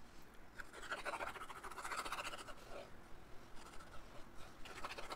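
Beacon 3-in-1 glue squeezed from a plastic squeeze bottle onto chipboard: a soft, rapid crackling hiss from the nozzle as glue and air spurt out, strongest from about one to three seconds in.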